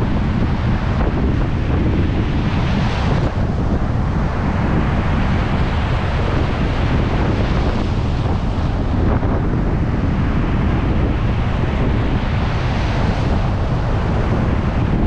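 Surf breaking on a beach in strong wind, with heavy wind buffeting on the microphone making a loud, steady low rumble. The hiss of the waves swells about three seconds in and again near the end.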